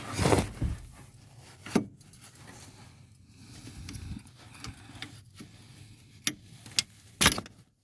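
Hands pushing and working at a plastic neutral safety switch snapped into the base of a steering column. Rubbing and scraping with several sharp clicks and knocks, a few of them close together near the end.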